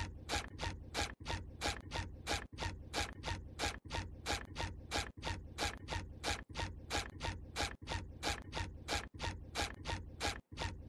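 Fast, evenly spaced mechanical clicking like a ratchet or a clock being wound, about three clicks a second. It repeats in a regular loop with a brief gap every second or so, the pattern of a ticking sound effect laid over the footage.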